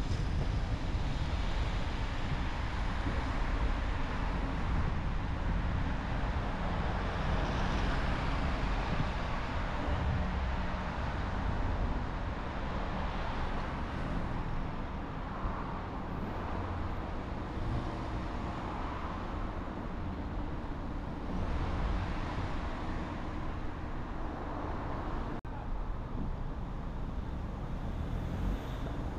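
A car driving along a city road: steady engine rumble and tyre and road noise, with the sound of the surrounding traffic.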